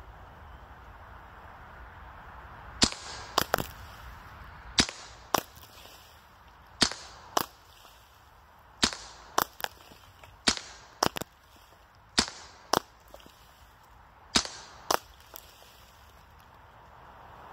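Hatsan Blitz .30 calibre PCP air rifle firing sharp cracks in quick groups of two or three shots, about half a second apart, with a group every two seconds or so, seven groups in all.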